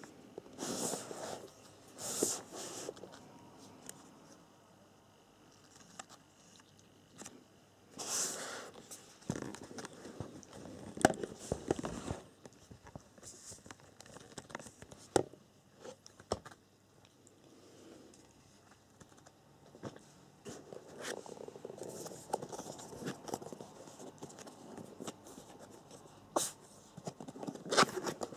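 A cardboard box being handled: on-and-off rustling and scraping of cardboard, with several sharp clicks and taps.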